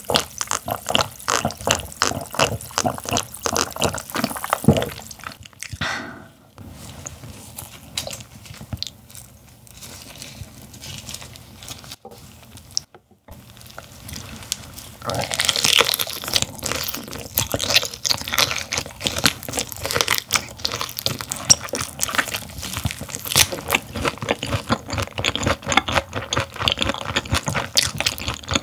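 Close-miked gulping and swallowing of a drink from a glass mug. After a quieter pause, the steady wet crunch and smack of chewing raw gizzard shad sashimi, bones and all, begins about halfway in.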